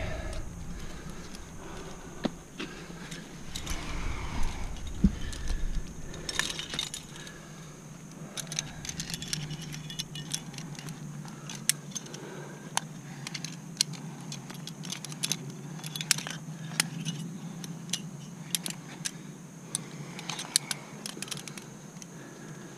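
Climbing carabiners and quickdraws clinking and jangling: scattered sharp metal clicks as the gear is handled and knocks together, coming thickly from about six seconds in.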